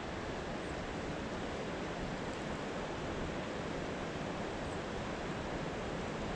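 Creek water flowing in a steady, even rush.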